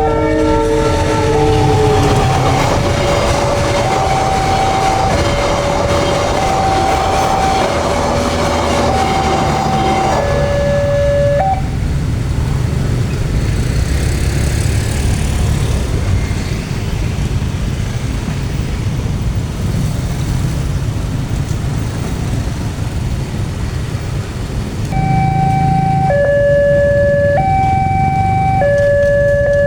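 Level-crossing warning alarm sounding a two-tone high-low signal, swapping pitch a little over once a second, over the heavy low rumble of a passing train. The alarm stops about 11 seconds in while the train noise carries on, and starts again about 25 seconds in; at the very start a locomotive horn chord is just dying away.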